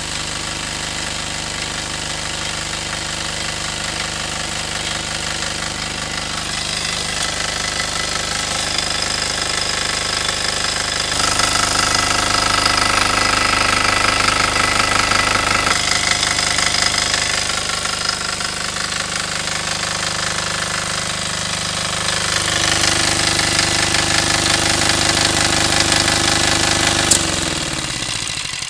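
Air-cooled single-cylinder Yanmar diesel engine on a small 1.5 kW generator, running steadily with a hard diesel knock just after being pull-started, already warm from earlier running. Near the end there is a click, and the engine winds down and stops.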